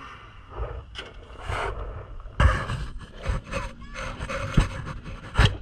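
Heavy breathing close to the microphone, mixed with scraping and rubbing of boots and gear on loose stones. Several sharp knocks, the loudest about two and a half seconds in and twice near the end.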